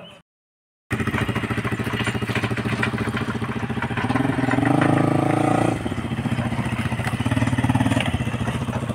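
A motorcycle engine running close by, steady with a fast regular pulse, louder for a couple of seconds around the middle. It starts about a second in, after a brief cut to silence.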